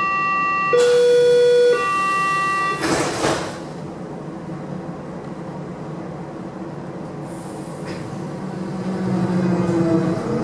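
Berlin S-Bahn class 480 door-closing warning signal: a steady high-low-high tone lasting about three seconds, followed by a short rush of noise as the doors shut. Near the end the train's original GTO traction electronics begin their tonal drone as it starts to pull away.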